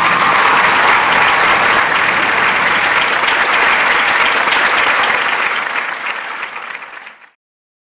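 Crowd applauding, a dense steady clapping that fades out near the end and then stops abruptly.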